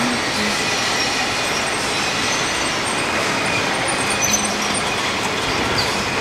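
Bottling-line machinery running, a steady, even mechanical din with no clear rhythm.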